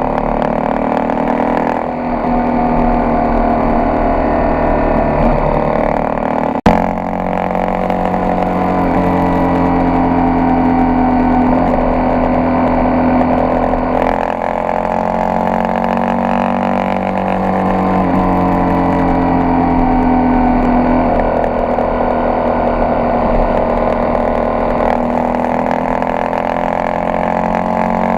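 Honda XRE 300's single-cylinder four-stroke engine running under way, its note slowly rising and then falling several times. A single sharp knock about seven seconds in.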